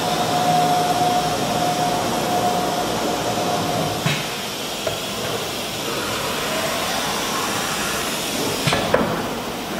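Woodworking CNC router: a steady spindle whine over machine noise cuts off with a click about four seconds in. A rising whine follows later, and near the end there is a short sharp hiss of air as the spindle sits at its automatic tool-changer rack.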